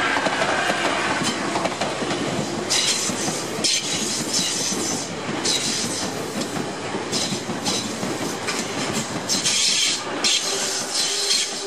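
Tobu Spacia limited express trains running past each other, wheels clattering over the rail joints. Bursts of high-pitched noise come and go from about three seconds in, and a steady hum comes in near the end.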